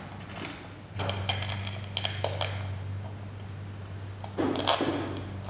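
Metal clinks and taps as a two-stroke bicycle engine's case and loose bolts are handled on a workbench, with a louder clatter about four and a half seconds in. A steady low hum runs underneath.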